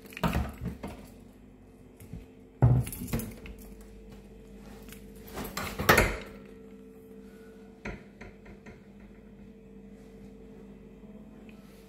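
Kitchen fittings being handled: three loud bursts of clattering and knocking, the last as the oven door and its wire racks are opened, then a single sharp knock. A steady low hum runs underneath.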